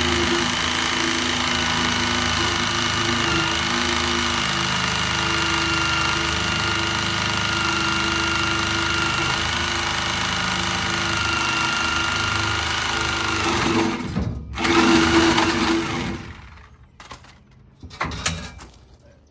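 Cordless reciprocating saw (Sawzall) cutting through a steel truck exhaust pipe. It runs steadily with a whine for about fourteen seconds, pauses, then gives one short louder burst and stops. A few knocks follow near the end.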